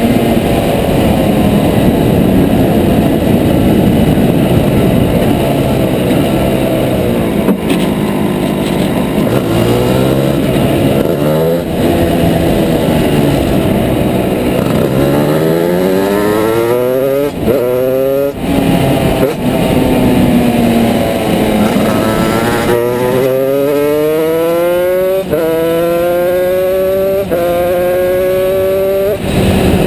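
Go-kart engine running under load as the kart is driven. Its pitch climbs again and again, and each climb breaks off in a sudden drop before the next one.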